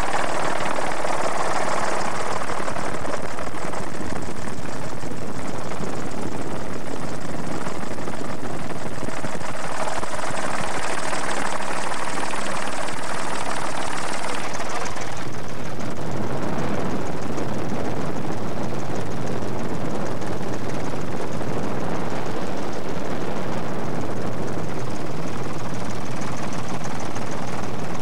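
Helicopter noise heard from on board: a steady, loud drone of rotor and engine with no break, its tone changing abruptly about halfway through.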